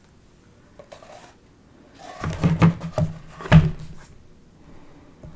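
Knocking and rattling of floss storage bins and bobbins being handled, with a couple of light clicks about a second in and a cluster of sharper knocks from about two to four seconds in.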